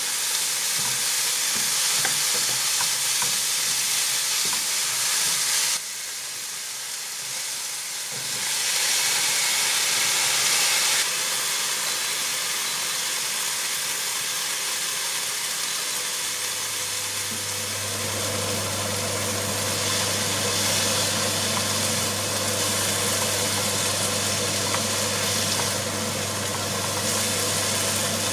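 Steady hiss and sizzle of food cooking, with abrupt changes in level a few times where the footage is cut. About two-thirds of the way in, a low steady hum, like an appliance motor running, starts underneath and continues.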